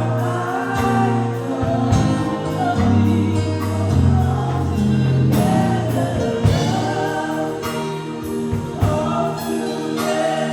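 Gospel worship music: voices singing together over a band with held bass notes and drum hits.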